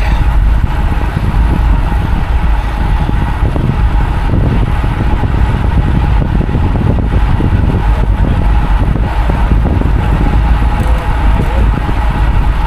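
Wind rushing over the microphone of a road cyclist's camera while riding at speed: a loud, steady low rumble with no break.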